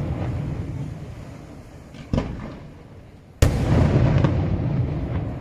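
Daytime aerial fireworks shells bursting. A sharp report comes just after two seconds, then a heavy bang about three and a half seconds in, its deep rolling echo carrying on. The echo of an earlier bang is still fading at the start.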